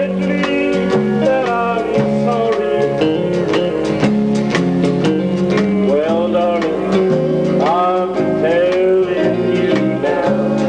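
Country-style music: plucked guitar notes over a steady accompaniment, with several notes bending and sliding in pitch.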